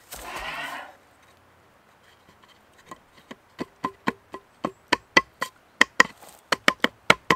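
Sharp wooden knocks, a few at first and then quickly about four a second, as a peg or slat of a slatted wooden folding camp table is tapped into place. A brief scraping rustle comes in the first second.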